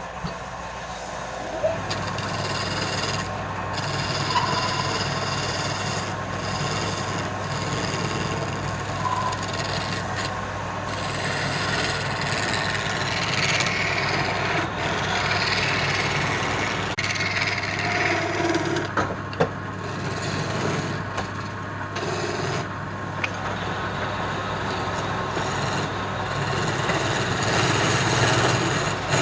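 Wood lathe running with a steady motor hum that starts about two seconds in, while a tool works the spinning wood with a continuous scraping, rasping sound.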